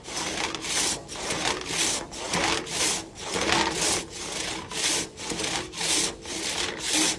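Large two-man crosscut saw worked by one person through a log in steady back-and-forth strokes, about two a second. Its freshly sharpened and set teeth take a deep cut with every stroke.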